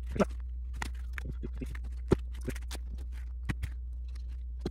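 Handling noise of wire and a wound ferrite toroid on a cardboard-covered bench: scattered small clicks and taps, the sharpest about two seconds in, over a steady low hum.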